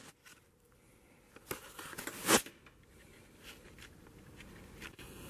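Small handling sounds: a light click, then a short crackling rustle about two seconds in, and a few faint ticks over quiet room tone.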